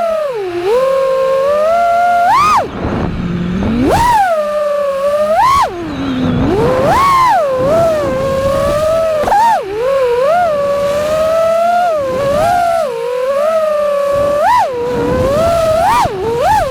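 FPV freestyle quadcopter's brushless motors whining, the pitch swooping up and down again and again as the throttle is punched and eased off. The steadiest part comes between the sharp rises.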